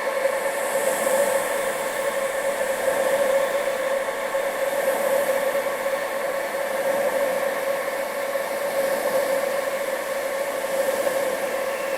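Steady rushing wind sound used as tinnitus masking, with a constant drone at a middle pitch under it and a high hiss that swells and fades every few seconds.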